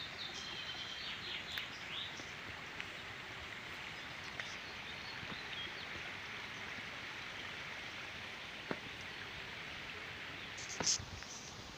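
Small stream flowing with a steady rush of water. A few short high chirps come in the first couple of seconds, and there is a sharp click near the end.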